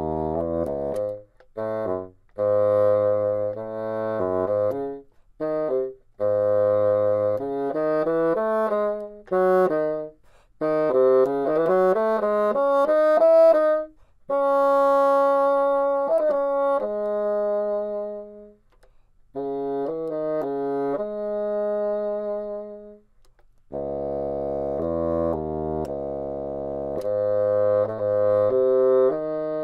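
Solo bassoon playing a slow, lyrical etude in C sharp minor, in short phrases broken by brief breaths, with a few long held notes about halfway through and again a little later.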